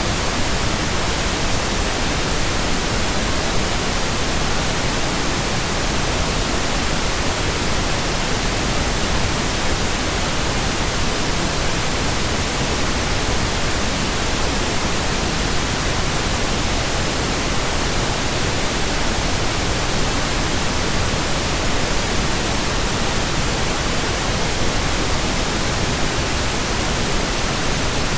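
Steady electronically generated pink noise: an even, unchanging hiss across all pitches, with no tones or breaks.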